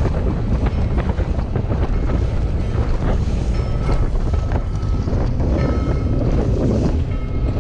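Small outboard-powered boat running through choppy water: heavy wind buffeting the microphone over the rush of water along the hull and a steady low engine rumble.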